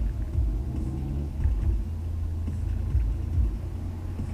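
Honda S2000's four-cylinder engine and the road droning low inside the cabin while driving, with several short low thumps.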